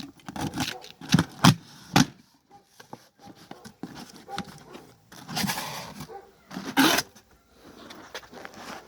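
Cardboard boxes and packaging being handled and unpacked. There are a few sharp knocks between about one and two seconds in, then bursts of rustling and scraping about five and seven seconds in.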